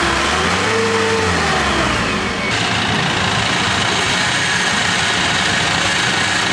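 Off-road Jeep engine revving up and falling back as it drives through mud, its pitch rising and then dropping over the first two seconds. About two and a half seconds in, the sound changes abruptly to a steady engine running under a noisy hiss.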